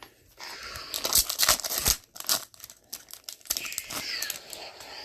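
Hockey card pack wrapper being torn open, with crinkling of the wrapper and rustling of the cards as they come out.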